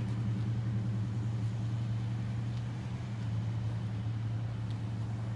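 Steady low mechanical hum that does not change, with a couple of faint ticks.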